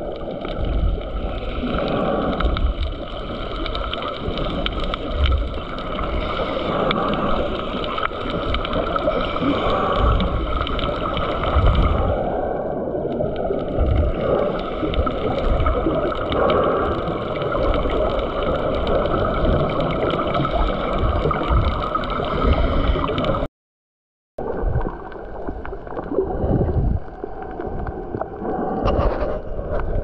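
Muffled underwater sound picked up by a camera below the surface: a steady gurgling water rush with scattered low thumps. It cuts out for about a second near the end, then resumes.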